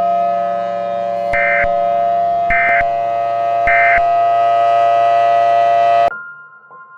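A steady, siren-like tone of several pitches, over which three short warbling data bursts sound about a second apart: the EAS end-of-message tones that close an alert. The tone cuts off suddenly about six seconds in.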